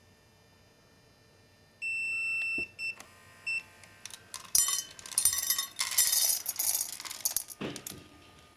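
An electronic beep lasting under a second, then two short beeps. Then dry cat food rattles into a bowl for about three seconds, ending with a low thud.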